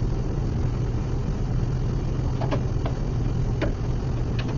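Steady low hum of workshop machinery running, with a few light metal clicks as parts are fitted inside a table saw's blade opening.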